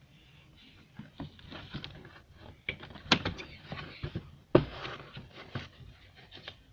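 Handling noises from a car's rubber door seal and sill trim being pulled and worked by hand: scattered clicks and rustling, with two sharp snaps about three and four and a half seconds in.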